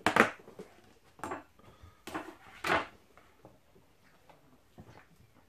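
Containers being handled, knocking and clattering: four sharp knocks in the first three seconds, then a few faint taps.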